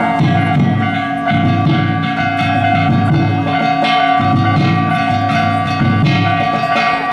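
Danjiri festival cart's hayashi played: a big taiko drum beating steadily under ringing, clanging hand gongs.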